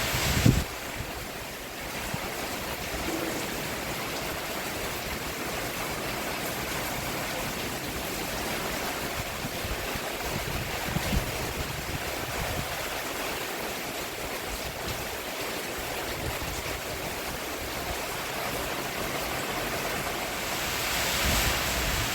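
Steady rain falling on a roof, an even hiss. It is louder and brighter at first, drops with a short thump about half a second in, then swells again near the end.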